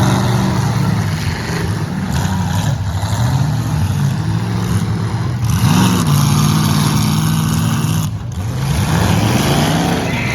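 Demolition derby car engines running loud and revving, their pitch rising and falling several times, over a steady roar.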